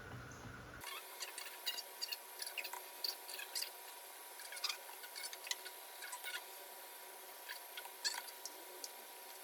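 A run of light, sharp, irregular clicks and taps, several a second, beginning just under a second in.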